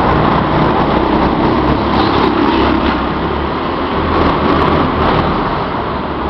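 Go-kart engines running as karts lap the track, a loud steady engine drone that rises and falls slightly as karts pass.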